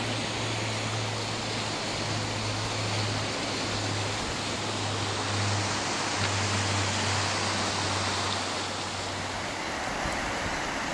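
Mountain river (the Sill) rushing over stones and rocks: a steady wash of flowing-water noise.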